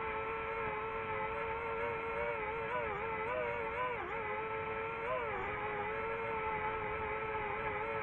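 DJI FPV drone's motors and propellers whining at a steady pitch; the pitch wavers, dipping and rising several times around the middle.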